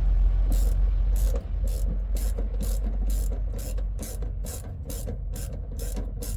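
Ratchet spanner clicking as bolts are run down on a van's fuel tank sender unit, a quick, even train of about three clicks a second.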